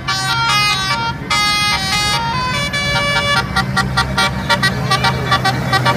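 Tour bus's multi-tone 'basuri' telolet horn playing a melody of held notes that step from pitch to pitch, switching about halfway through to rapid short toots. A steady low hum of the bus running sits underneath.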